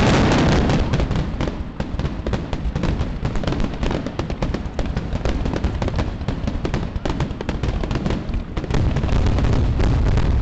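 Aerial fireworks shells bursting in a dense, rapid barrage of bangs and crackles, with heavier booms near the end.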